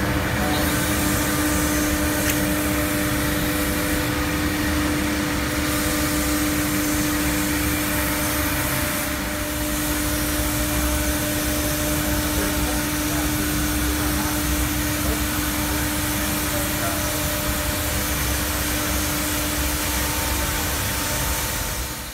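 CNC router and its vacuum system running steadily while machining plastic sheet: a constant hum with one steady mid-pitched tone over a broad hiss.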